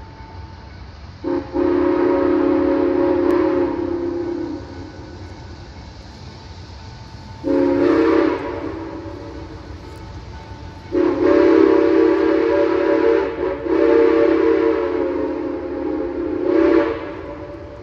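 Western Maryland 1309, a 2-6-6-2 articulated steam locomotive, sounding its steam whistle in a series of blasts, each a chord of several steady tones: a long blast, a short one, two long ones with a brief gap between them, and a short final toot. A low steady rumble runs underneath.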